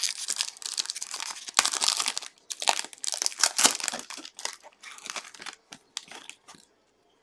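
Foil pack of 2022 Contender Optic football cards being torn open and crinkled by hand, the cards then slid out of the wrapper. The crinkling thins out and stops about six and a half seconds in.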